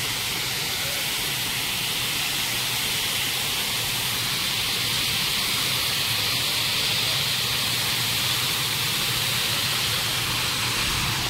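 Water pouring over a lake's concrete overflow weir: a steady rushing hiss.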